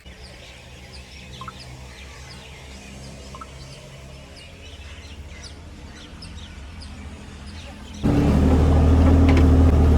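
Small birds chirping repeatedly over a steady low engine hum. About eight seconds in, a much louder engine sound suddenly cuts in and keeps running.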